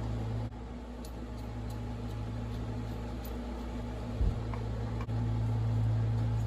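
Steady low machine hum, easing slightly about half a second in and coming back up about five seconds in. A few faint clicks and a short knock about four seconds in come from tools being handled on the bench.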